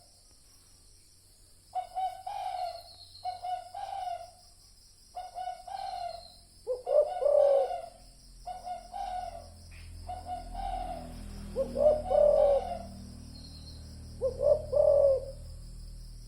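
Spotted doves cooing: repeated low, pitched coo phrases, starting about two seconds in and recurring every second or so, over a steady high insect drone.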